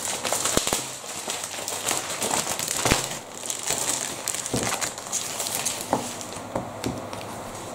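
Crinkling and rustling of LEGO set packaging and paper as the instruction booklet and sticker sheets are handled and laid down, with a few light knocks.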